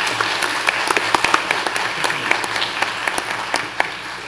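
Audience applauding: dense clapping that starts to die down near the end.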